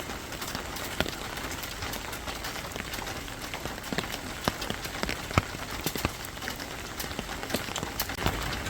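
Steady rain falling, with irregular sharp drips and drops striking a nearby surface.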